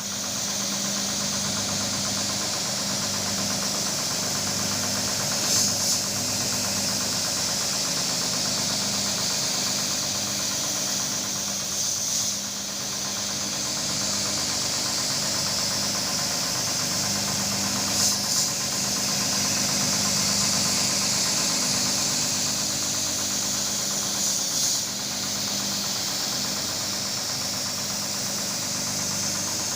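Electric carpet-washing machine running steadily, with a motor hum and a strong high hiss. A short double knock repeats about every six seconds.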